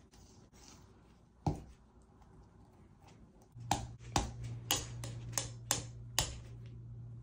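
A palette knife clicking and tapping against the palette while mixing thick paint: one sharp click, then a run of six or seven clicks about two a second in the second half. A low steady hum starts about halfway through.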